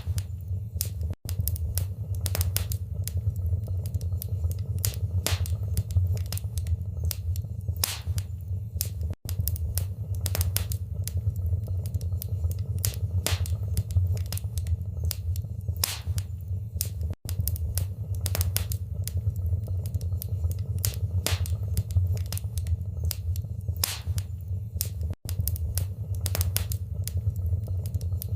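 Fire crackling in a fireplace: irregular sharp pops and snaps over a steady low rumble of the flames. A split-second dropout breaks the sound about every eight seconds.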